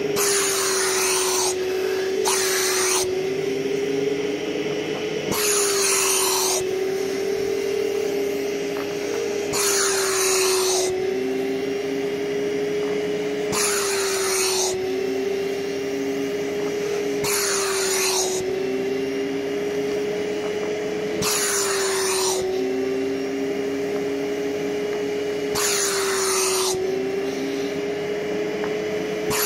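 Festool dust extractor running steadily as a stone lifter, its hose driving a suction cup. About every four seconds a loud hiss of air rushes through the cup for about a second as its seal on a paving stone is made or broken, and the motor's pitch dips slightly with each.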